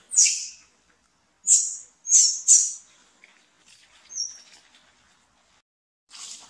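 Baby macaque giving short, high-pitched squeals: four loud ones in the first three seconds, then a fainter one about four seconds in.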